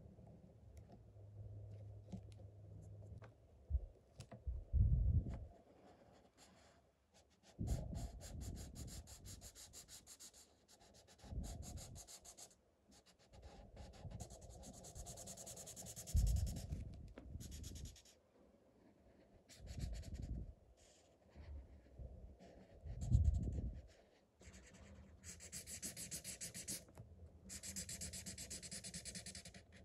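Felt-tip marker scratching back and forth across paper in bursts of quick strokes. Several dull low bumps come in between, the loudest about five seconds in and again near the end.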